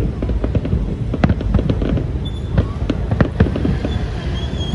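Fireworks going off in a dense, irregular barrage of sharp bangs and crackles over a low rumble.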